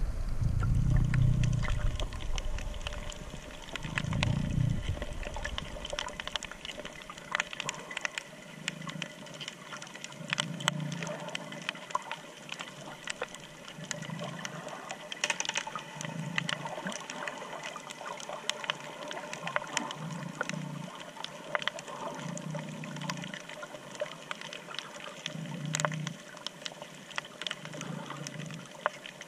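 Underwater ambience over a coral reef, heard with the camera submerged: a steady crackle of small clicks, with low muffled whooshes of water every two to three seconds. A louder low churning of water fills the first several seconds.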